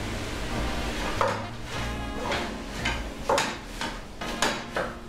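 Wooden spoon stirring frying onions in a stainless steel pot, knocking against the pot in a series of irregular ringing clinks, over background music.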